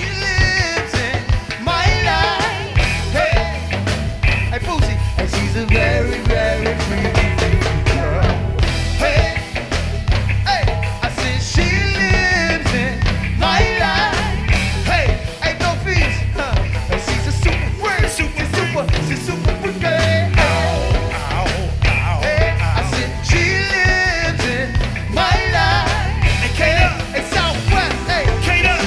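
Live band music in the crank style of go-go: a steady drum beat over heavy bass, with a lead melody wavering over the top.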